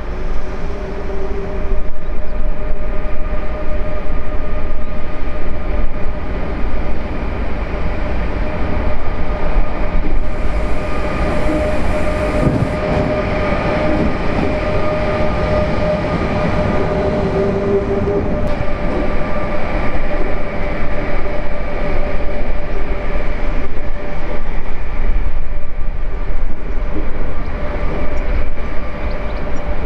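Railway locomotives at low speed: a DB Class 152 electric running light, with a steady whine over a heavy low rumble.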